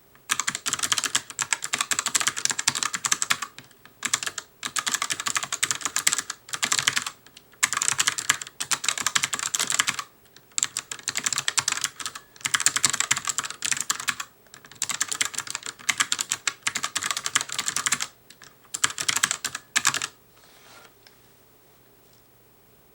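Fast touch-typing on an ELECOM ARMA TK-ARMA50BK low-profile mechanical keyboard with clicky switches: rapid runs of crisp key clicks in bursts of a second or two, broken by short pauses. The typing stops about 20 seconds in.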